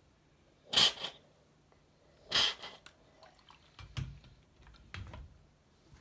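Steam iron letting off two short hisses of steam about a second and a half apart as it is pressed onto a towel over a cotton tote bag. Then soft thumps and rustling as the iron is set down and the towel and bag are handled.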